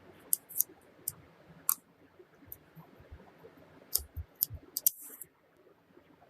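Small sharp clicks and taps from handling a pistol and its parts, coming irregularly about a dozen times. A few dull thumps and a short hiss come about two-thirds of the way through.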